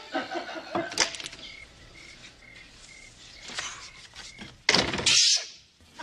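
A French door being worked: a thunk about a second in, then crickets chirping at about four a second, then a loud clatter near the end as the door is opened or shut.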